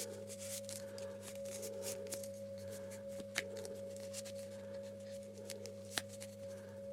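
Small plastic clicks and rustles of a toy being handled, with two sharper clicks about three and a half and six seconds in, over a steady electrical hum.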